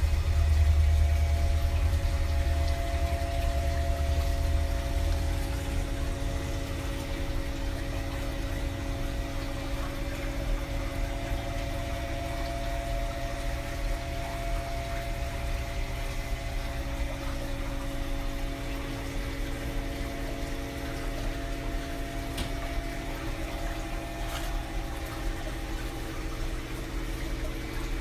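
Aquarium filter pump running with a steady hum and water circulating. A deep rumble in the first few seconds eases off.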